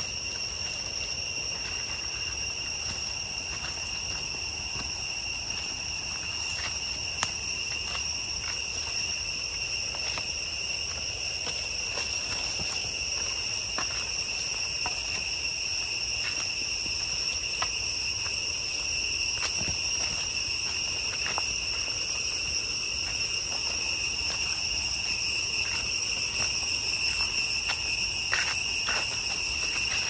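Cicadas droning in one continuous high-pitched whine that grows a little louder, with scattered crunches of footsteps on dry leaf litter.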